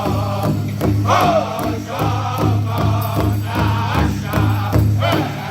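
Powwow drum group singing in unison over a steady beat on a large powwow drum, with high, bending vocal lines.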